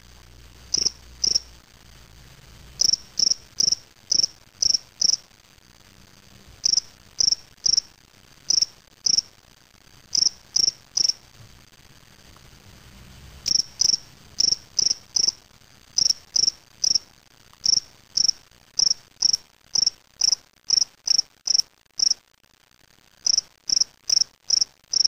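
Male spring field cricket (Gryllus veletis) calling: short high-pitched chirps, about two or three a second, in runs of two to six with pauses between them.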